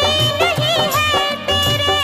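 Background Bollywood-style film song: a wavering, ornamented melody over a steady beat.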